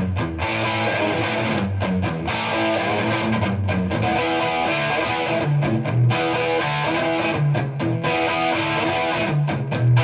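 Distorted electric guitar: a Gibson Les Paul R9 reissue through a jumpered, cranked 1972 Marshall Model 1986 50-watt Bass head and a Marshall 4x12 cabinet. It plays held chords and riffs, with a few short stops between phrases.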